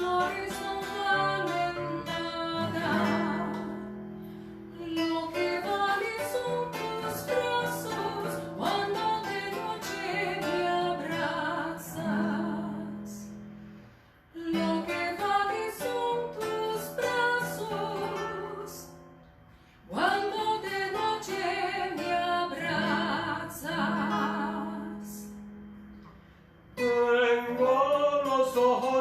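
Acoustic guitar playing an old Spanish folk tune, with singing over it, in phrases broken by short pauses.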